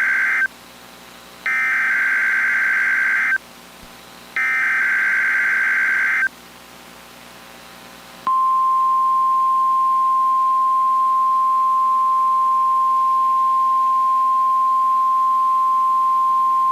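Emergency Alert System SAME header: three identical bursts of warbling digital data tones, each about two seconds long with a second's pause between them, the first ending just in. About eight seconds in, the steady single-pitch 1050 Hz NOAA Weather Radio warning alarm tone begins. This sequence opens the alert that follows, a Required Monthly Test run with a tornado drill.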